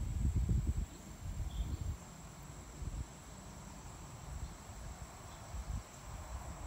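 Insects droning in one steady high tone, with irregular low rumbles on the microphone, strongest in the first two seconds.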